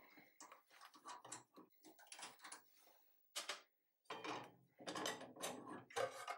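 Faint clicks and light metallic knocks of a cabinet saw's blade and arbor being handled by hand during a blade change. The clicks are sparse at first and come thicker and a little louder over the last couple of seconds.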